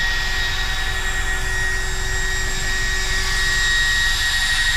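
Small electric cooling fans on an RC truck's ESC and motor running at speed: a steady high-pitched whine over a hiss, with a low rumble underneath, as the electronics cool down after a high-speed run.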